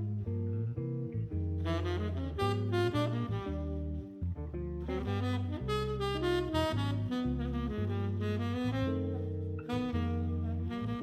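Jazzy instrumental music with a saxophone lead over a bass line.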